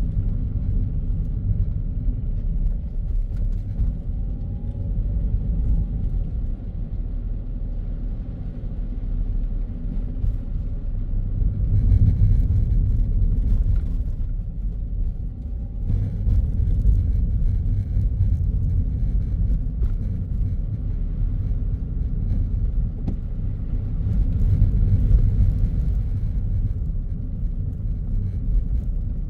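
Car driving on a city road: a steady low road and engine rumble that swells several times.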